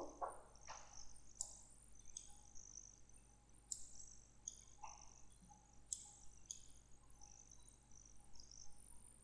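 Near silence: faint room tone with a low hum and scattered soft, short clicks at irregular intervals.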